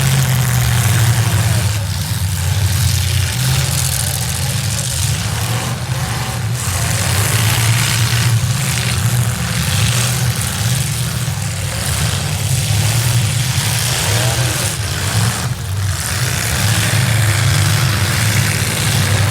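Several demolition derby cars' V8 engines running and revving together, a loud steady low drone with rough exhaust noise.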